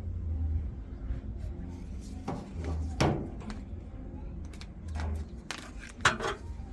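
Scattered knocks and clicks of washing-machine panels and parts being handled during disassembly, over a steady low hum. The sharpest knocks come about three seconds in and near the end.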